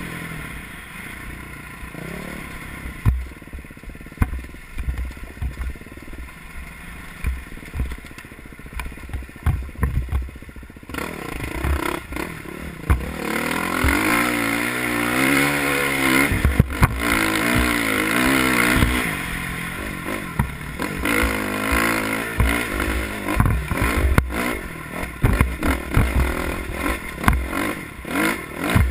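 Off-road dirt bike engine heard from the rider's helmet camera over rough desert ground, with frequent clatter and knocks from the bike over rocks and bumps. About eleven seconds in the engine revs up and stays loud, its pitch rising and falling with the throttle as the bike climbs a sandy slope.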